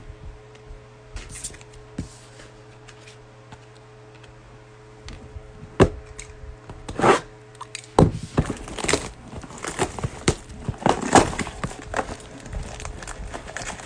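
Cardboard trading-card boxes and their wrapping being handled: scattered sharp clicks and rustling that grow busier from about halfway in, over a steady low hum.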